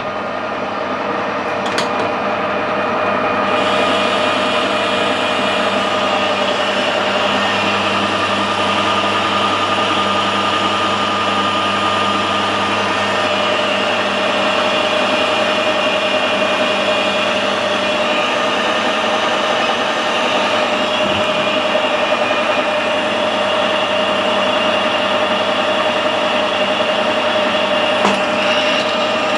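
Metal lathe running with a boring bar taking a light spring cut, a final pass at the same setting, inside a metal bore: a steady machine hum with several held tones and a cutting hiss that brightens a few seconds in.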